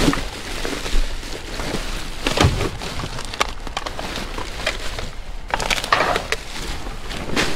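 Trash in a dumpster being rummaged through: irregular crackling and rustling with scattered sharp knocks, the loudest right at the start, about a second in and about two and a half seconds in.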